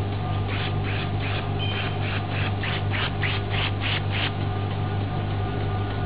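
Slimming machine's RF suction handpiece working against the skin: a steady low hum with rapid rhythmic hissing pulses, about three to four a second, which stop about four seconds in.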